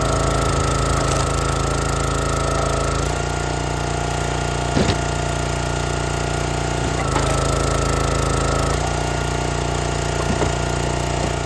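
Small gas engine of a log splitter running steadily. Its note and a higher whine change as the splitting ram works under load. Sharp cracks of cherry wood splitting come about five and ten seconds in.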